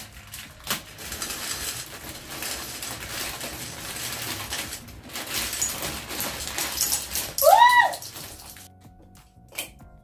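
Dry macaroni pasta pouring out of a plastic bag into a glass jar, a dense rattling patter of pasta hitting glass and pasta. About seven and a half seconds in comes a short, loud tone that rises and then falls. A single sharp click follows near the end.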